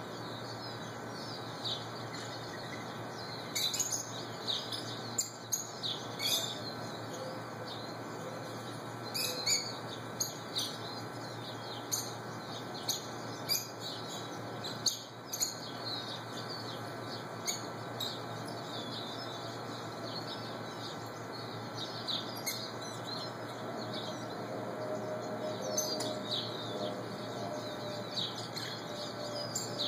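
Rosy-faced lovebirds calling: short, sharp, high chirps, often several in quick succession, repeated irregularly over a steady background hum.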